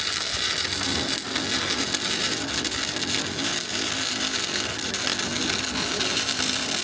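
Electric arc welding: the arc runs with a steady, even crackle as a bead is laid. It is the smooth, consistent arc sound that the welders say sounded really good, a sign of a good weld.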